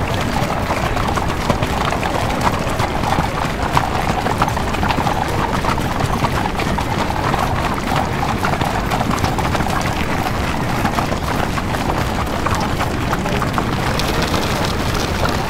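Sound-effect track of horses' hooves clip-clopping on a street over a steady background of street noise.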